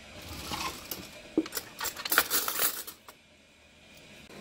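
A wooden kitchen drawer pulled open and metal cutlery clinking and rattling in its tray as a spoon is picked out: a quick string of clicks and clinks over about three seconds, then quiet.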